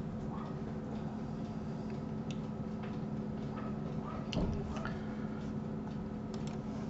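Sparse clicks of a computer mouse and keyboard, a few seconds apart, over a steady low hum.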